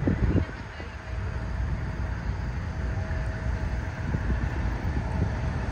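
Road traffic on a busy street: a steady low rumble of passing cars, with a faint steady whine above it.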